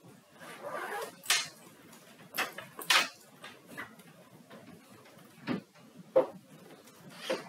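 Scattered handling noises at desks: a brief rustle, then a handful of sharp knocks and clicks at uneven intervals, about a second apart.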